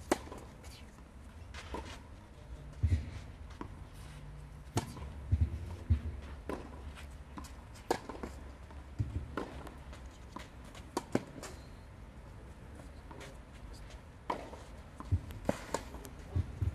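Junior tennis rally on a clay court: sharp pops of racket strings hitting the ball and the ball bouncing, coming every second or two, with shoes scuffing on the clay between shots.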